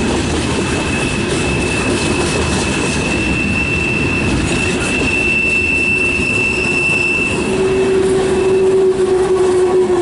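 Freight cars of a CN train rolling past with a steady high-pitched wheel squeal over the rumble and clatter of the wheels. Near the end the high squeal fades and a lower squealing tone takes over.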